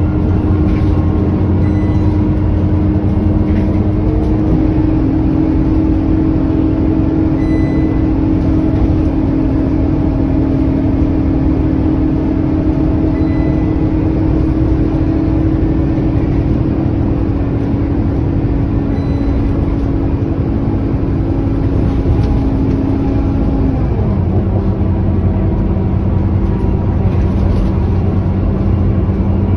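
Scania K230UB bus's five-cylinder diesel engine and drivetrain running steadily under way, heard from inside the passenger cabin. A steady hum runs under road noise and drops a little in pitch about five seconds in, then again about three-quarters of the way through.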